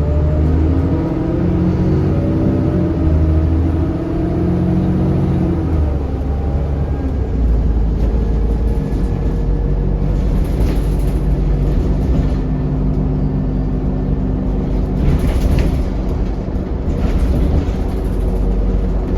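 ADL Enviro400 double-decker bus under way, heard on board: its engine and driveline run with several whining tones that shift in pitch for the first few seconds. About seven seconds in it settles into a steady deep rumble, with a few short hisses later on.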